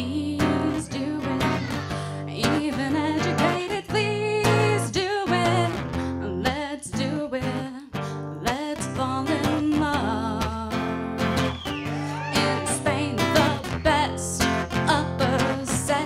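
Acoustic guitar strummed and picked as accompaniment while a woman sings a slow, wavering melody into a microphone.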